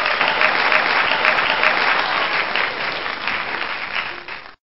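Large audience applauding: dense, steady clapping that cuts off suddenly near the end.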